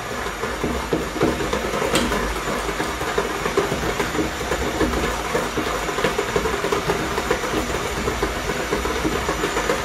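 Electric hand mixer running steadily, its beaters whirring through butter, sugar and egg cake batter in a stainless steel bowl.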